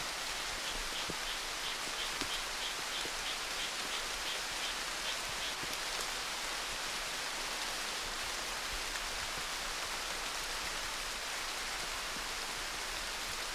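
Steady rainfall, an even hiss of falling rain. For the first few seconds a rapid run of short high chirps, about three a second, sounds over it.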